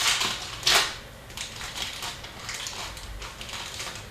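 Hockey trading cards being handled, a series of short papery swipes and rustles as cards are slid off and across a stack, the loudest near the start.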